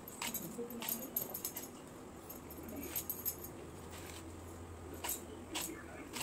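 A vegetable being peeled against a bonti, the upright curved blade fixed to a floor board: about half a dozen short, sharp clicks and scrapes of the blade catching the skin, irregularly spaced.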